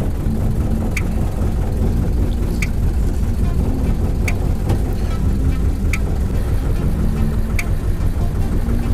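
Fishing boat's engine running steadily, with a short sharp tick repeating about every second and a half.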